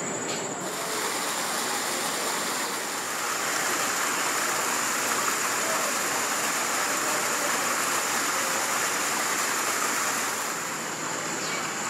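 Steady rushing of running water, setting in about half a second in, with a faint steady high-pitched whine alongside it.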